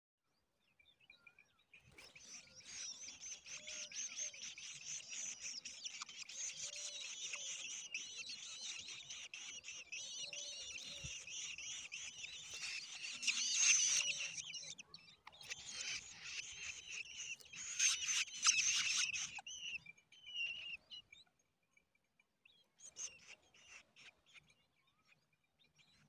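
Large woodshrike nestlings begging: a dense, high-pitched chorus of calls from several chicks at once. It breaks off briefly past the middle, starts up again, then dies down to a few scattered calls near the end.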